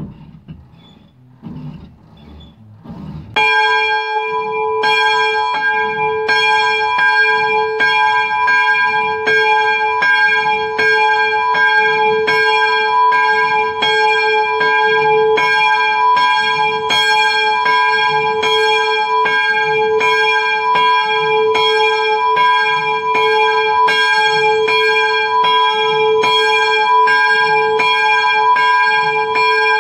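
Swinging church bell rung for the morning ringing, its clapper striking about three seconds in. It then strikes in an even run, roughly one and a half strokes a second, each stroke ringing on into the next.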